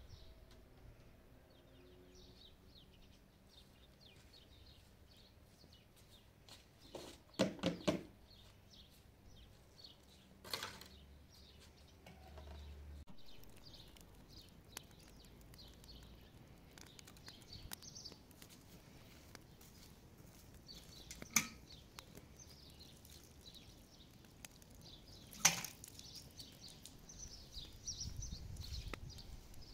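Small birds chirping faintly throughout, with a few sharp knocks and clatters. The loudest is a quick cluster of three or four knocks about a quarter of the way in, and single knocks follow later.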